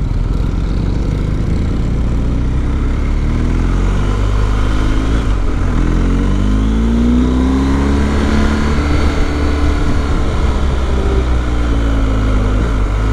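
BMW R1250's boxer-twin engine running under way, its pitch climbing about six seconds in as the bike accelerates, then falling away again around ten seconds in.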